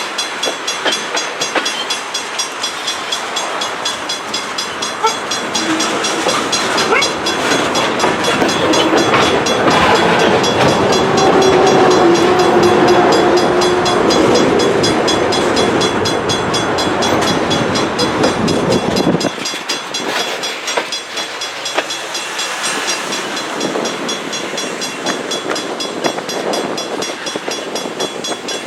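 Loaded freight train of propane tank cars rolling past, wheels clicking over rail joints, growing louder to a peak about twelve seconds in, with a faint held tone in the middle. The low rumble drops away abruptly about two-thirds of the way through.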